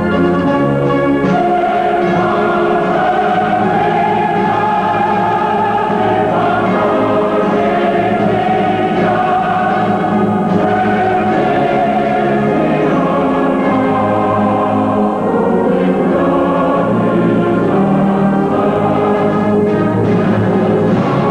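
Orchestral music with a choir singing long held chords, at a steady level throughout.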